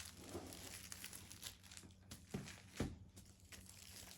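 Faint crinkling and rustling of firecracker packs' paper wrapping being handled, with a couple of light knocks as they are moved about.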